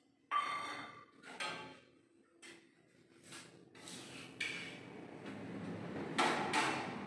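Steel kitchen vessels and utensils clanking and scraping as pans are handled at a gas stove: a string of separate knocks, one ringing briefly, then busier clatter in the second half.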